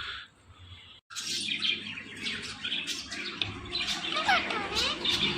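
Indian ringneck parakeet chirping and whistling: a run of short calls starting about a second in, with quick bending whistles near the end.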